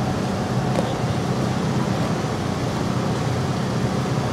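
Steady street-traffic noise: a continuous low hum and rumble of passing vehicles, with no distinct events.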